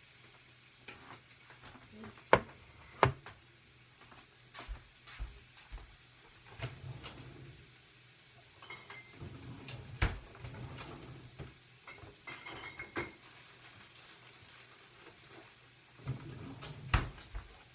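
Dishes and utensils clinking and knocking on a countertop as plates and a bowl are handled and set down, in scattered strikes, two of them loud about two and three seconds in.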